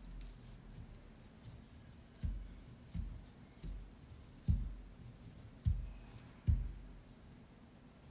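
Chocolate cake ball being rolled and pressed by a gloved hand in a small ceramic dish of cocoa-and-coconut crumbs: about six dull low thumps over a few seconds, with faint crumb rustling and clicks.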